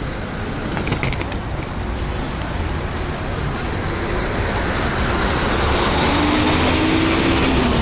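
Motor vehicle running, with engine rumble and road noise that grow louder over the last few seconds, and a few sharp clicks about a second in.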